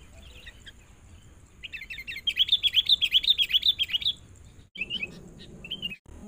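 Sooty-headed bulbul calling: a fast, loud chattering run of sharp notes for about two seconds, then a couple of short calls after sudden breaks.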